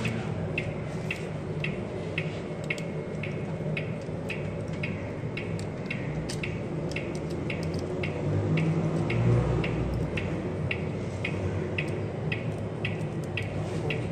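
Steady, regular ticking, nearly two short ticks a second, over a low hum that swells briefly around the middle.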